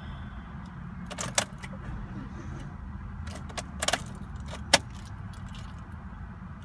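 Car keys jangling and clinking in a few short bursts, with one sharp click just before five seconds, over a steady low rumble.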